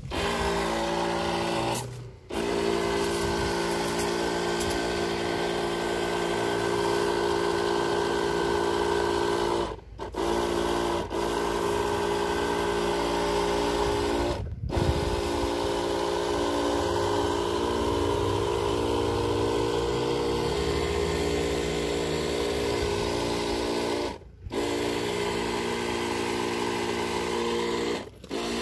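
Electric backpack sprayer's pump motor running with a steady hum while the lance sprays. The hum breaks off sharply for a moment about five times.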